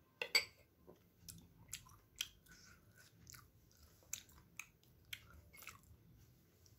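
A person eating close to the microphone: quiet chewing with irregular sharp mouth clicks, about two a second.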